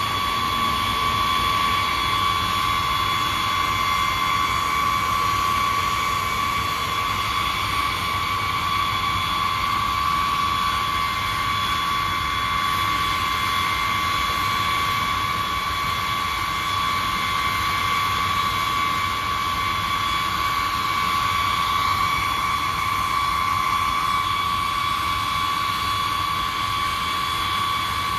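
Jet engines of a B-52 bomber, its eight TF33 turbofans, running steadily: a high steady whine over a constant rush, with no spool-up or let-down.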